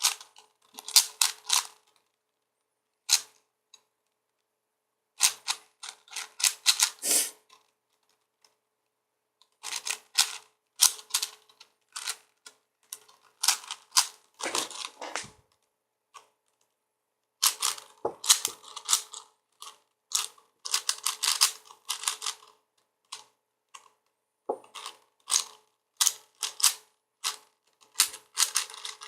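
4x4x4 Rubik's cube being turned during a solve: rapid plastic clicking and clacking of layer turns in runs of a few seconds, broken by short pauses.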